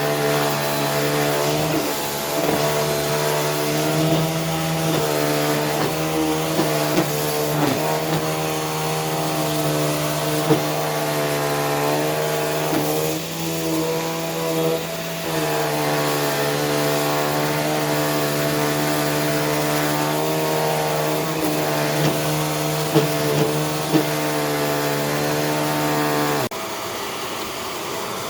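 Vacuum cleaner running over a surface: a steady motor hum with a whine above it that wavers in pitch as the nozzle moves, with a few sharp clicks. About two seconds before the end the whine cuts off abruptly, leaving a quieter, even rushing of suction.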